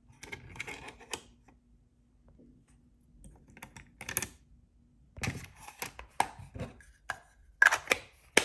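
Plastic clicks, taps and rattles of a Winsor & Newton watercolour palette case as half-pan paints are pressed into its tray and the case is handled. The clicks come in irregular clusters, a short one about four seconds in and a denser run from about five seconds on, with the sharpest clicks near the end.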